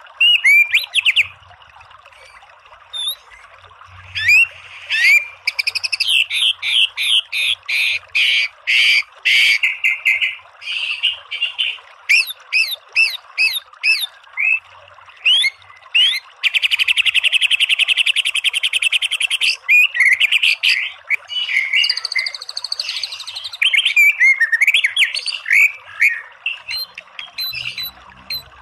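White-rumped shama (murai batu) singing a fast, varied song of quick whistled notes, many of them rising or falling in pitch. A long rapid trill runs for a couple of seconds around the middle, and there is a short pause after the first second or so. A faint steady hiss sits beneath the song.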